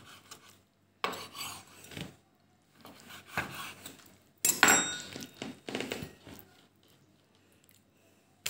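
Kitchen knife cutting through raw pork and scraping on a wooden cutting board, in a series of separate strokes with the loudest about four and a half seconds in; the sound dies away over the last couple of seconds.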